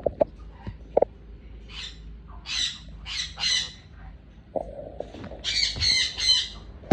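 Sun conure squawking: four short, harsh screechy calls in the middle, then a quicker run of calls near the end.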